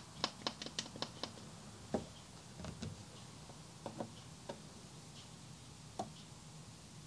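Faint clicks and taps from hands handling the opened iMac's logic board and internal parts: a quick run of about six clicks in the first second or so, then single taps every second or two.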